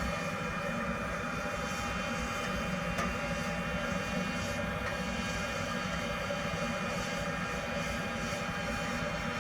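A 12-volt boat bilge blower running steadily, pushing a lot of air through a waste-oil furnace's combustion chamber and heat exchanger: an even whir of the motor over a rush of moving air.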